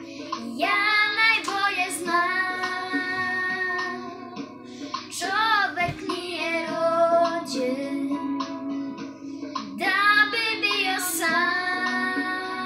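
A young girl singing a slow song solo, holding long notes that waver in pitch, phrase by phrase. Quieter instrumental backing, likely guitar, plays steadily underneath.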